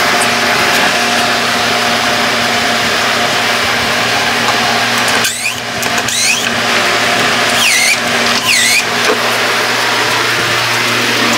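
A machine runs steadily with a constant electrical hum, like a motor-driven appliance. A few short, high-pitched squeaks come about halfway through.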